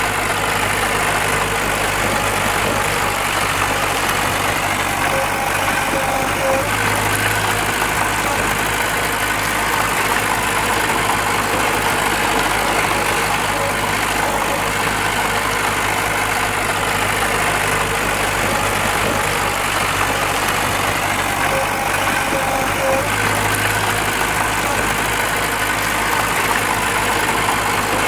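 Diesel engine of heavy earthmoving machinery running steadily, with small shifts in its low hum twice.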